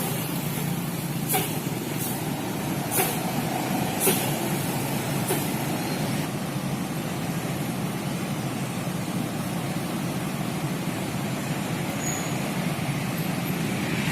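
Large bus's diesel engine idling steadily, with several short sharp air-brake hisses in the first five seconds.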